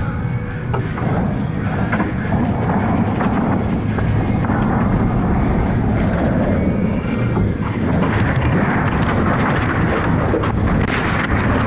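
Seawater surging back onto a shore, a steady loud rushing roar.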